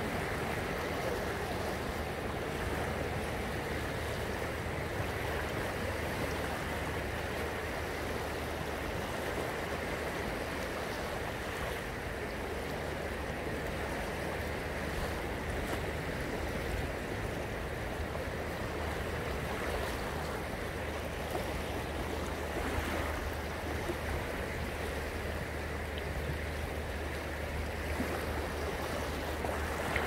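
Small choppy sea waves washing and lapping steadily onto a sandy beach.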